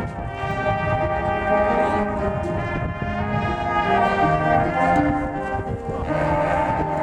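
High school marching band playing, its brass holding full chords while the lower brass moves from note to note beneath; the sound grows louder about six seconds in.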